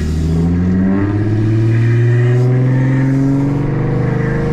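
Audi A6's supercharged 3.0-litre V6 heard from inside the cabin, pulling lightly in second gear, its pitch rising slowly and steadily as the car gathers speed.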